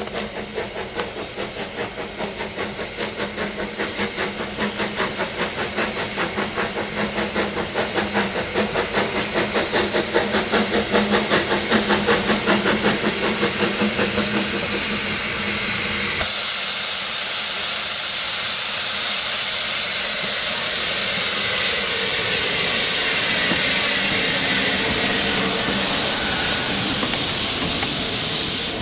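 Narrow-gauge steam locomotive No. 190 'Lyd' working a train toward and past, its exhaust beats coming about two a second and growing louder. About halfway through the beats give way abruptly to a steady loud hiss of steam as the engine passes.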